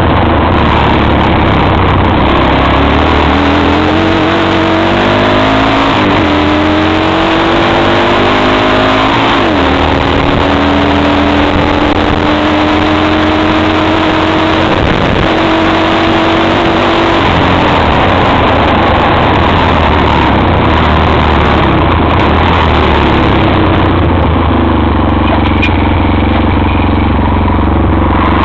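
Xingyue XY250STXE quad's engine under way: its pitch climbs and drops back twice in the first ten seconds as it shifts up, then holds steady for several seconds. A loud, constant rushing noise of wind and the gravel track runs underneath.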